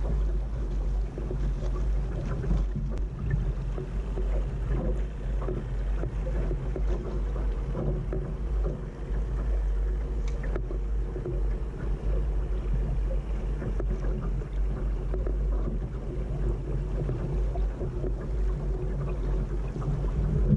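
Laser sailing dinghy under way: water washing steadily along the hull, under a constant low rumble of wind on the microphone, with a few small ticks and knocks.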